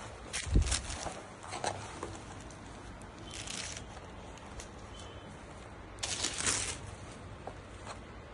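A saree being unfolded and spread out by hand: fabric rustling in short swishes, with a dull thump about half a second in and two longer swishes, one midway and one near the end.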